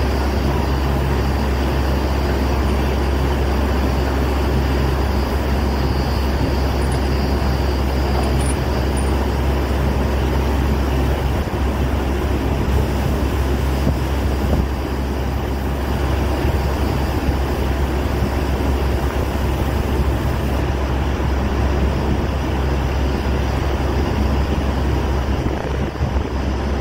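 Truck-mounted borewell drilling rig running steadily while drilling: a loud, even engine drone under a continuous rushing hiss.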